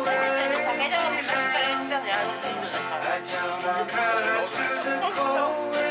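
Acoustic guitar music played live, strummed, with a voice singing the melody.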